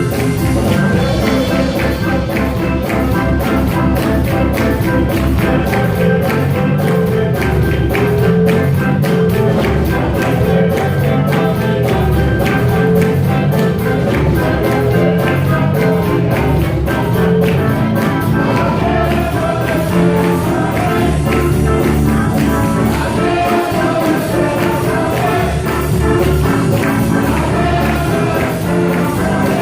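Upbeat praise music with a steady beat from a band, with singing.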